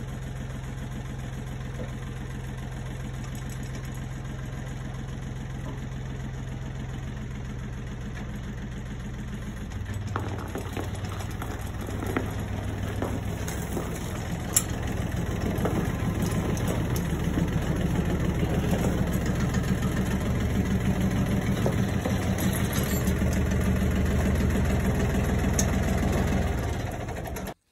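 Compact farm tractor engine idling steadily. About ten seconds in it revs up and runs harder as the tractor pulls away with a manure spreader in tow, with a few sharp clanks. The sound cuts off suddenly near the end.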